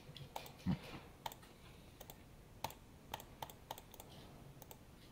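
Faint, irregular clicking of a computer keyboard and mouse, a dozen or so sharp clicks, some in quick pairs.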